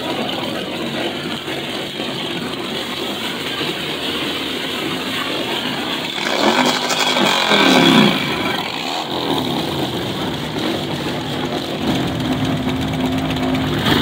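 A motor vehicle engine running, with a brief rise and fall in revs about six to eight seconds in and a steady hum near the end.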